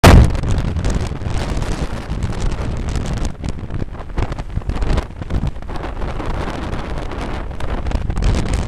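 Wind buffeting the microphone on a moving motorcycle taxi, a rough rushing rumble over the motorbike's running and road noise, with one loud gust right at the start.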